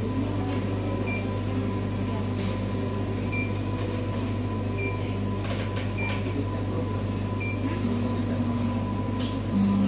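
Steady low electrical hum, with about six faint short beeps and a few light clicks as keys are pressed on the electrolyte analyzer's membrane keypad.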